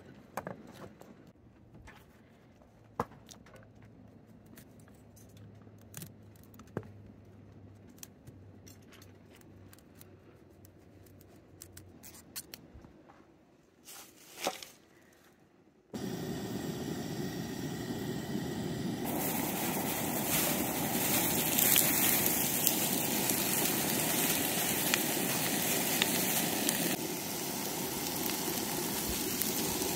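Scattered knife taps and clicks on a plastic cutting board as onion and broccoli are cut, then, after a sudden change about halfway, a steady loud sizzle of chopped zucchini, onion and broccoli frying in oil in a cast-iron skillet.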